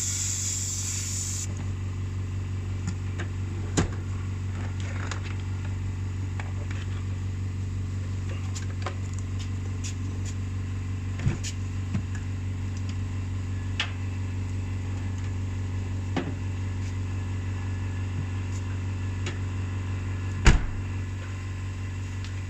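Subaru Impreza running with a steady low hum, with scattered clicks and knocks and one louder knock near the end. A high hiss cuts off suddenly about a second and a half in.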